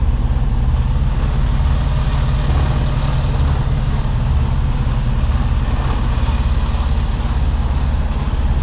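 Mercedes-Benz Actros diesel engine running at low speed with a steady low drone, heard from inside the cab as the truck creeps around a tight corner.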